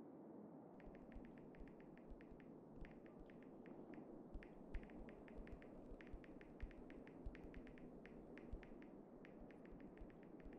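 Typing on a smartphone touchscreen keyboard: short, irregular clicking taps, several a second, starting about a second in, over a low steady hum of room tone.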